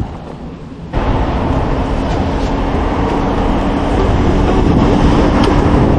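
Wind rushing over the microphone with road noise while riding a bicycle, coming in abruptly about a second in and staying steady.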